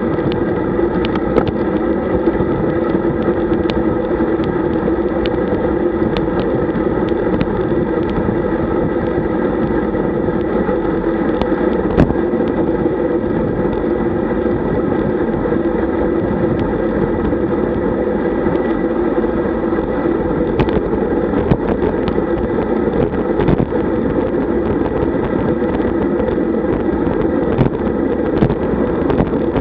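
Steady wind rush and tyre hum on a camera riding on a road bike at about 40 km/h, with scattered small clicks and knocks from the road.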